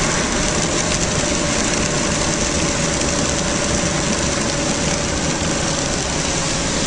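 Car heard from inside the cabin while driving: steady engine and road noise, an even hiss with a faint steady hum.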